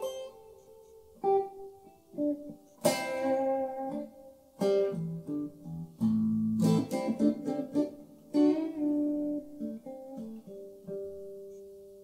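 Electric guitar, a homemade Telecaster, played on the clean channel of a Hughes & Kettner Tubemeister 36 valve amplifier: a run of strummed chords and picked notes struck every second or two, each left to ring out and fade.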